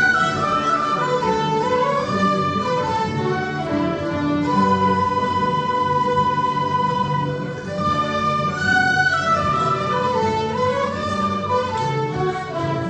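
A mixed-instrument folk group playing a traditional Scottish tune together. The melody moves in steps and holds one long note for about three seconds midway.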